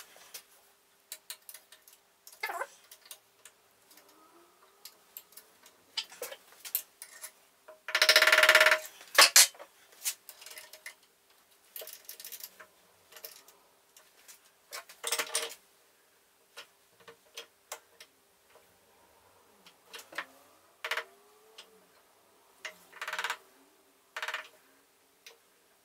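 Scattered metal clicks and knocks of tools and a machine vise being fitted and adjusted on a metal shaper's table, with a louder clatter lasting about a second some eight seconds in. A faint steady hum sits underneath.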